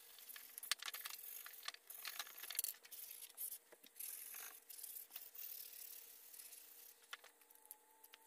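Faint scratchy rubbing with irregular light clicks as the edge of a seat-back panel is hand-sanded with a folded piece of sandpaper and the panel is handled and turned.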